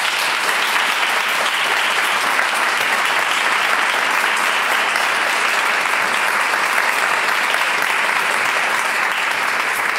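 An audience applauding steadily, with sustained clapping that starts abruptly at the end of a speech.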